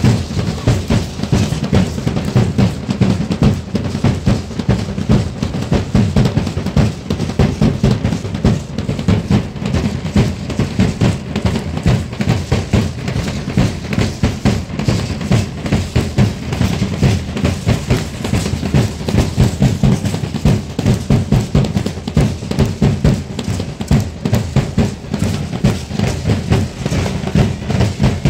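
Danza drums, bass drum and snare, beating a fast, steady dance rhythm of several strikes a second.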